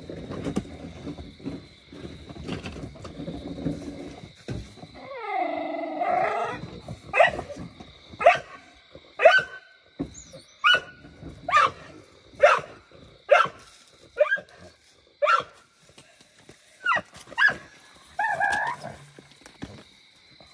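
A pit bull-type dog barking over and over, about one short sharp bark a second, while straining on its leash at a pig pen gate. A drawn-out cry comes shortly before the barking starts.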